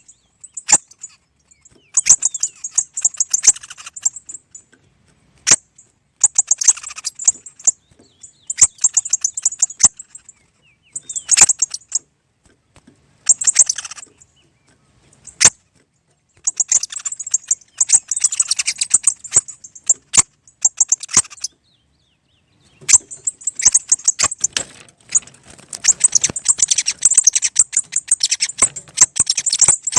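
Small birds twittering in fast, high chirps, in bursts of a second or two with short silent gaps between, then in longer runs over the second half.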